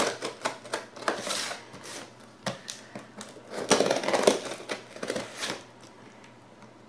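A folding knife slitting the packing tape along a cardboard box's seam: a run of scratchy cuts and scrapes with the cardboard crackling under the blade. The cutting dies down in the last second or so.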